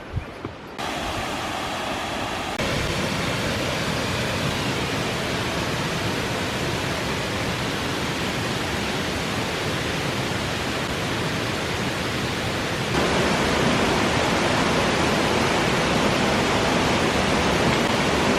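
Waterfall on the Little Duck River, a dense steady rush of water. It gets louder in sudden steps about a second in, near three seconds in and again about thirteen seconds in.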